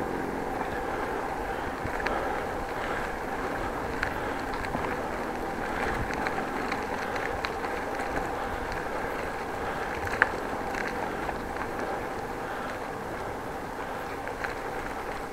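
Steady rolling noise of a bicycle being ridden, with a faint constant hum and a few small rattles and clicks; one sharper click comes about ten seconds in.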